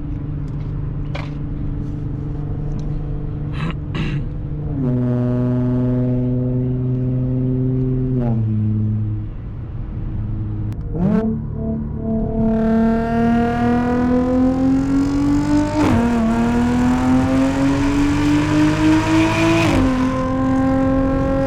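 2012 Audi S4's supercharged 3.0-litre V6 with an AWE Touring exhaust, cruising steadily and then easing off. From about halfway it accelerates hard: the revs climb, fall at an upshift, climb again and fall at a second upshift near the end.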